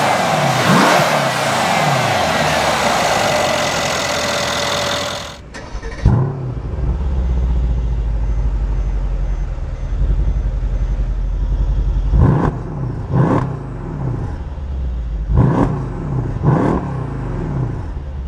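2014 Mercedes-Benz E63 AMG S twin-turbo V8 running. It is heard first from the open engine bay with a quick rev blip. Then it is heard from behind at the exhaust: a deep idle rumble with four quick throttle blips in two pairs in the second half.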